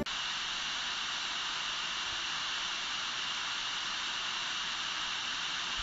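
Steady, even hiss like static, strongest in the upper range, with no change in level.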